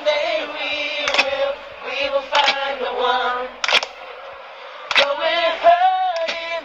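Live singing of a song, with sharp beats about every second and a quarter.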